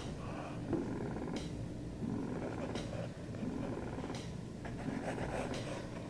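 Domestic cat purring steadily close by, a low rumbling purr that swells and eases with each breath about every second and a half.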